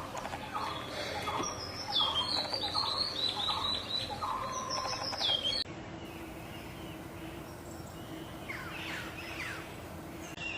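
Birds calling: a quick run of repeated short call notes for about six seconds, then, after a sudden change, a few fainter chirps over a steady low hum.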